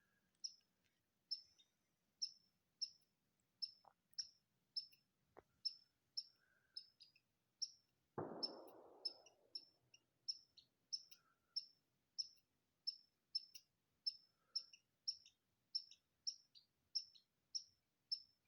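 Squirrel giving its alarm call: a steady run of short, high chirps, about two a second. A brief rustling noise comes about eight seconds in.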